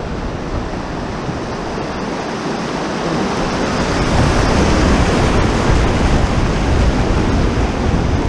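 Rushing whitewater of a river rapid churning around a canoe as it runs a small ledge, growing louder about four seconds in as the boat enters the waves.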